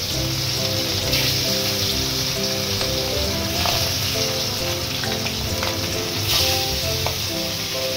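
Bhangor fish pieces frying in hot oil in a steel kadai, with a steady sizzle that swells briefly a couple of times as more pieces go into the pan. Background music plays along.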